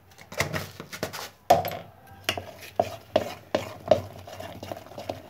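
Metal spoon beating besan batter in a steel bowl: wet stirring with the spoon knocking against the bowl's side about two to three times a second, the knocks settling into a steady rhythm about a second and a half in.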